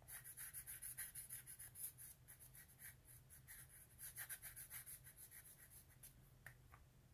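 Faint squeak and scratch of a felt-tip Sharpie marker drawing quick short strokes on a metal part, several strokes a second, stopping near the end.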